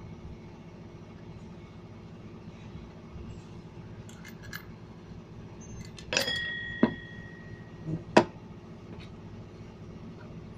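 Metal parts of a Honda Vario 125's centrifugal clutch clinking against a steel clutch-holder tool as they are shifted into place: a few light clicks, then about six seconds in three sharp metallic clinks a second or so apart, the first leaving a short ringing tone. A steady low hum runs underneath.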